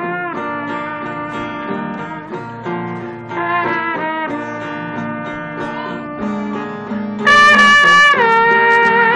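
Acoustic guitar playing along with a man imitating a trumpet with his mouth. A loud, buzzy held note enters about seven seconds in and slides down in pitch about a second later.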